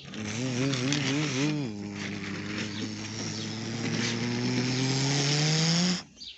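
A person imitating a race car's engine with their voice, a buzzing 'vrrrm' that wobbles up and down in pitch for the first second and a half, then holds and slowly rises before stopping about six seconds in.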